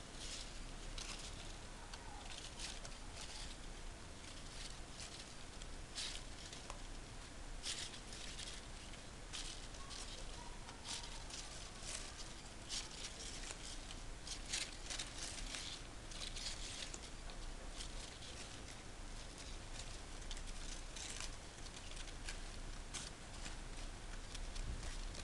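Crepe paper rustling and crinkling in irregular short crackles as hands stretch and spread the cut paper petals.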